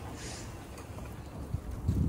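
Wind rumbling on the microphone, with a brief hiss about a quarter of a second in. Near the end, hands start slapping roti dough flat.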